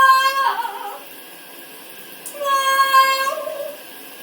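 Pet parrot giving two long, steady-pitched sung notes, one at the start and another about two and a half seconds in, each about a second long.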